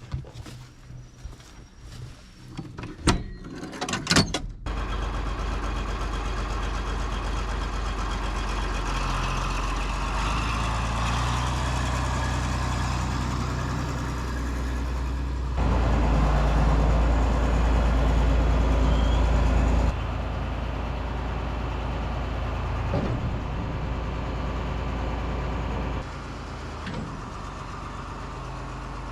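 A few sharp knocks, then a John Deere 4230 tractor's diesel engine starts about four and a half seconds in and runs steadily, louder for a few seconds in the middle before settling back down.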